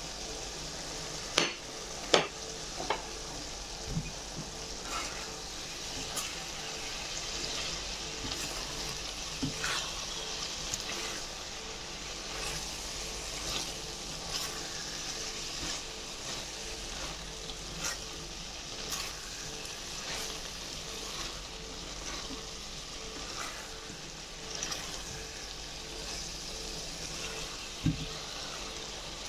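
Collard greens, beef and sliced chili peppers sizzling steadily in a pot as the last of the cooking liquid cooks off. Occasional clicks of a utensil against the pot come through as the food is stirred, the sharpest twice around two seconds in, with a low knock near the end.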